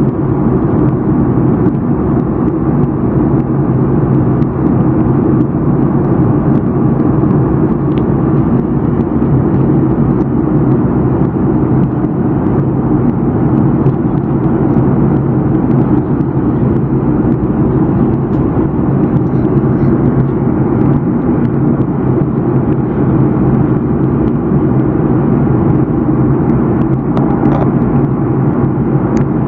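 Jet airliner cabin noise in cruise: the deep, steady drone of the engines and rushing air heard through the fuselage, unchanging throughout.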